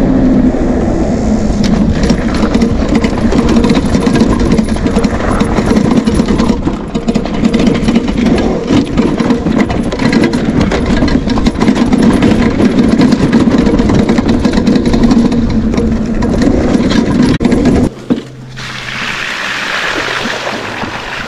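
Electric off-road bike ridden fast, with wind rushing over the microphone and the knobby tyres rumbling under a steady hum. A few seconds before the end the rumble drops and water splashes and hisses as the front wheel ploughs through a muddy puddle.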